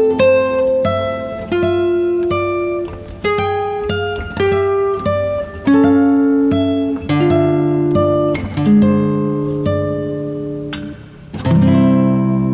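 Background music on guitar: a melody of single plucked notes, one every half second or so, each left to ring. Near the end a fuller chord is struck and rings on.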